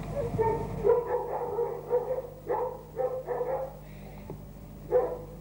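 A dog barking repeatedly: a run of short barks, then a pause before one more bark near the end.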